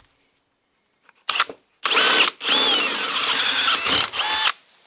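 Handheld power drill boring through a steel plate with an oiled bit. It runs in a few short bursts, then for about two seconds without stopping, its whine shifting in pitch.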